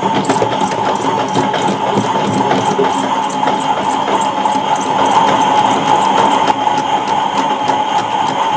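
Battery-powered toy washing machine running its spin cycle: a small electric motor whirring steadily with a constant hum tone, a light regular ticking from the turning drum on top.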